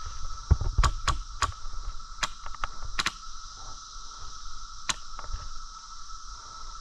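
Irregular sharp snaps, about seven in five seconds: airsoft guns firing single shots.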